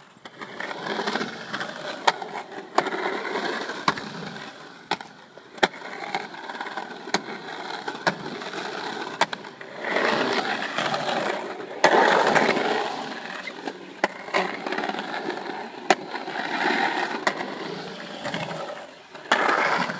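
Skateboard wheels rolling over the concrete of a skatepark pool, a rough continuous rumble that swells and fades as the board carves and turns, with sharp clacks of the board every second or so.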